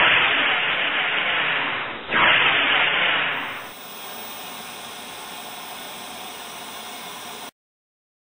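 Static hiss, like white noise from an untuned set: two loud surges of noise, then a quieter steady hiss from about four seconds in that cuts off suddenly near the end.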